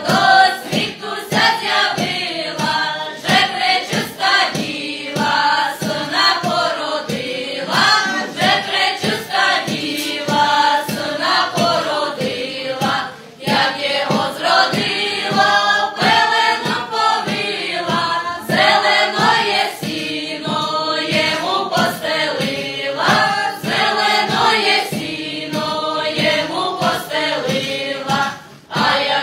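A group of voices singing a Transcarpathian Christmas carol (koliadka) together, with a regular beat under it and a brief break between verses about halfway through.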